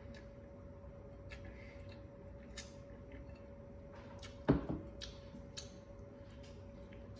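Close-up eating sounds from noodles taken by hand from a glass bowl of broth and eaten: small wet clicks and smacks, with one louder noise about halfway through.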